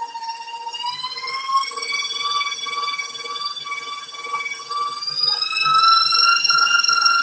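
KitchenAid stand mixer motor running steadily as the beater works through thick buttercream-style frosting, a steady whine that rises in pitch about a second in and again around five seconds in.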